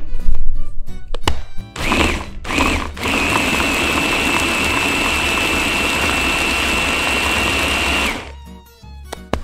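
Electric blender puréeing boiled chicken with broth: some loud knocks in the first second or so, two short pulses about two seconds in, then a steady run of about five seconds with a high whine that cuts off suddenly near the end.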